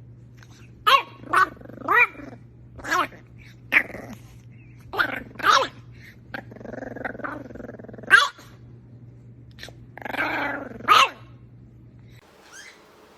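A dog barking and growling: about nine short barks with growling between them.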